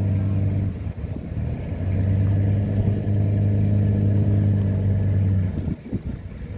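Boat engine running with a deep, steady hum over a low rumble. The hum drops out for about a second near the start and stops shortly before the end, leaving the rumble.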